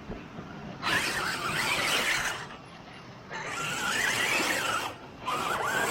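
Rock bouncer's engine revved hard in three bursts as its tires spin on wet rock and mud, with a wavering squeal in each burst.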